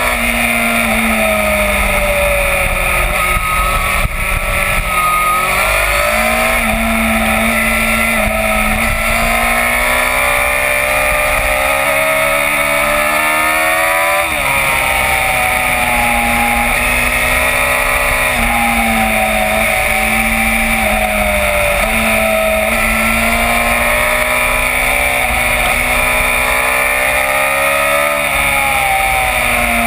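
Yamaha FZ1 inline-four motorcycle engine under way, its pitch rising and falling as the rider opens and eases the throttle through bends, with a sharp drop in revs about halfway through. Steady wind rush on the onboard microphone runs under it.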